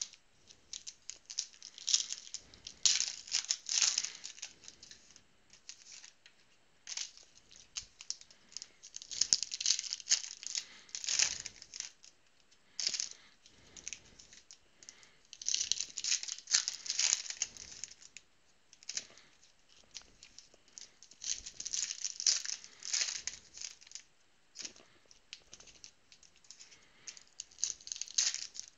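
Foil wrappers of trading-card packs crinkling as the packs are handled and shuffled, in repeated bursts a second or two long with short pauses between. Near the end a pack is torn open.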